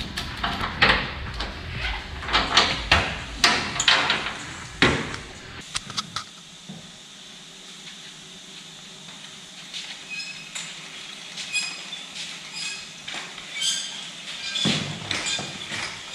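Metal clanks and knocks as the tie-down straps holding a car on a chassis dynamometer are unhooked, loud and irregular for about the first six seconds; then a quieter workshop background with light ticks about once a second and a few knocks near the end.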